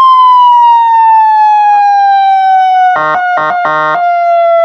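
200-watt electronic police siren sounding through a cone speaker: a loud wail tone gliding slowly downward. About three seconds in, three short blasts of a lower horn tone cut in over it.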